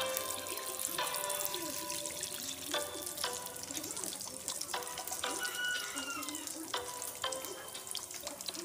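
Slices of chicken loaf sizzling and crackling as they shallow-fry in hot oil, with background music playing over it.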